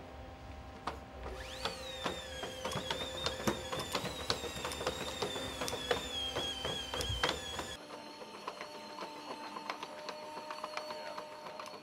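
Boston Dynamics Spot, a quadruped robot, walking. A high machine whine from its hydraulic power unit rises about two seconds in and then holds steady with a slight wobble, while its feet tick against the floor. Near the end a different steady whine and hum follows, with more ticks.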